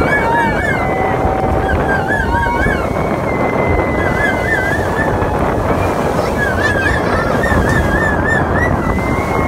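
Water rushing and breaking in a tour boat's wake, with wind on the microphone, as a steady loud noise. A high warbling whistle comes and goes over it several times.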